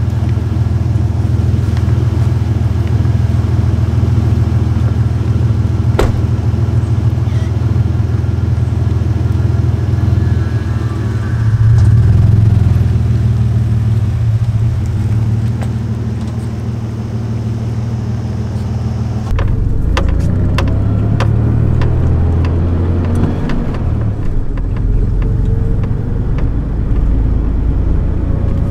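1998 Toyota Tacoma pickup's engine idling steadily, swelling briefly about twelve seconds in, with one sharp crack about six seconds in. About two-thirds of the way through, the sound changes to inside the cab while the truck drives off: the engine pulls with a slowly rising pitch over light rattles.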